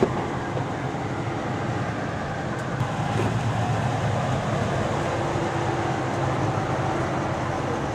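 Dodge Power Wagon pickup's V8 engine running steadily at low speed as the truck crawls over rock ledges, growing a little louder about three seconds in.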